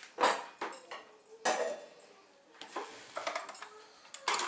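Several short clinks and knocks of dishes and kitchen utensils being handled and set down, spread over a few seconds. No motor runs.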